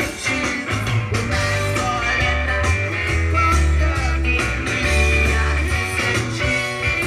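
Live rock band playing: electric guitar, bass and drums with a male singer, continuous and loud.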